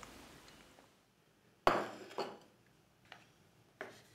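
Tableware being set down on a hard table: a sharp ceramic clink about one and a half seconds in, a second soon after, and two lighter taps near the end, each with a brief ring.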